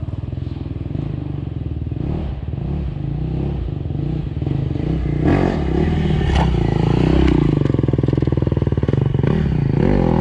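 Off-road dirt bike engine running, growing louder about halfway through as the bike rides down a steep drop toward the microphone.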